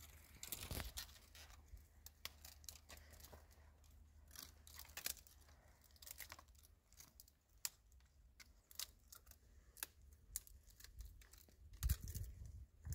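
Faint, irregular clicking and crackling, with a soft low thump near the end.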